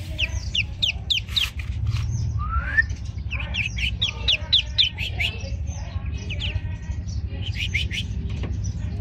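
Newly hatched ducklings peeping: runs of short, high peeps that each slide downward, several a second, with short pauses between runs, over a low steady hum.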